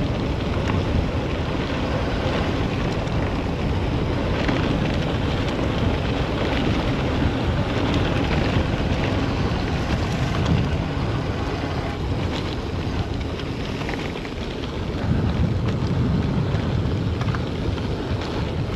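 Steady wind buffeting the microphone of a camera moving with a mountain-bike rider, a loud low rumble throughout.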